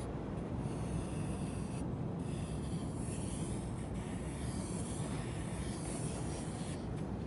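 Sea surf washing over sand and drawing back, a steady rough scratching hiss over a deep rumble.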